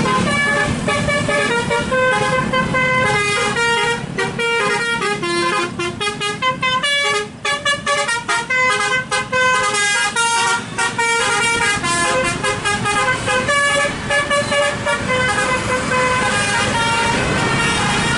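A bus's multi-tone 'telolet basuri' air horn playing a melody, its notes stepping up and down, with a long run of fast, short notes through the middle.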